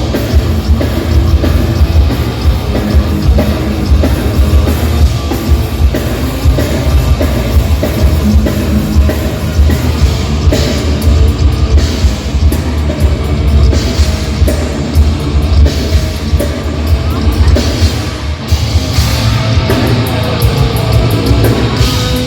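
Heavy metal band playing live at full volume: fast drum kit with heavy distorted guitars and bass, a thrash metal song run through at a sound check.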